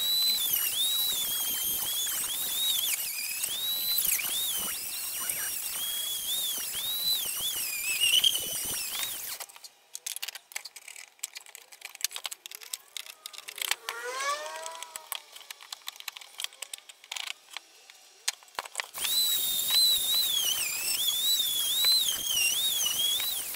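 A turning tool cutting a wooden root blank on a spinning wood lathe, squealing in a high, wavering pitch over scratchy cutting noise. About nine seconds in the squeal stops, giving way to quieter clicks and a brief squeak, then it starts again a few seconds before the end.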